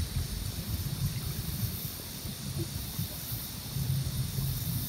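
Steady outdoor ambience: a low rumble under an even high-pitched hiss, with no single clear source standing out.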